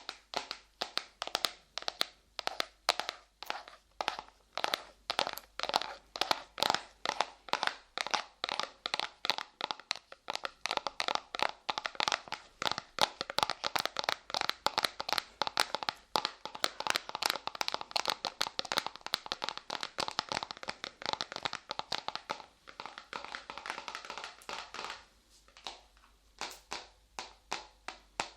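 Soft light clay pressed and pulled against the microphone by hand, making a quick run of sticky pops, about two to three a second, that blur into a denser rustle a little before the end.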